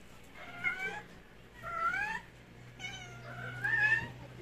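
Stray cats meowing: about four meows in a row, several of them rising in pitch.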